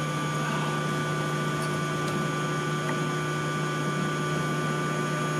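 Electric forge air blower running with a steady, even hum.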